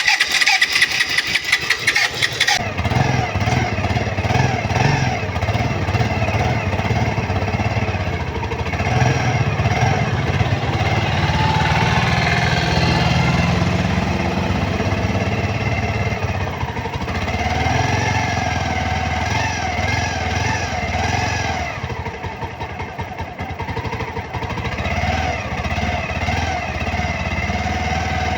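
Bajaj Pulsar 150 single-cylinder engine cranked and catching after a couple of seconds, then running and being revved up and down several times with its new timing chain fitted.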